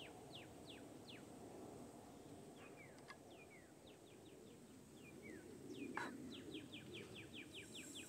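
Faint birdsong of repeated short falling chirps, quickening into a fast run of chirps near the end. Two light clicks from the air rifle's metal parts being handled, the louder one about three-quarters of the way through.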